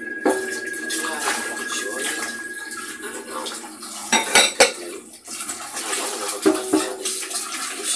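Washing up at a kitchen sink: glass and ceramic bowls clinking and knocking against each other over running water. Two sharp knocks a little after four seconds in are the loudest, with a few more clinks near the end.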